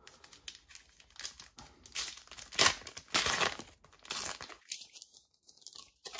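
The wrapper of a Panini Adrenalyn XL trading-card packet being torn open and crinkled in the hands, in a run of short rustling bursts, loudest about two and a half to three and a half seconds in.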